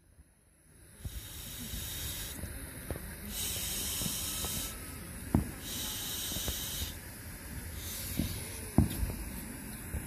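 Open-air dusk ambience: a steady hiss that swells into louder high-pitched stretches about a second long, over a low rumble, with a few faint thumps.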